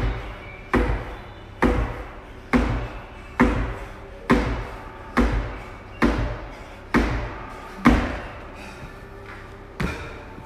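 Feet landing on a wooden plyo box with each jumping pull-up: a regular thud about once a second, ten in a row, then one weaker thud near the end.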